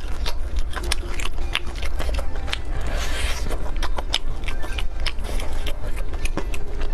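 Close-miked eating: chewing and biting meat off a bamboo skewer, heard as irregular sharp crackling clicks over a steady low rumble.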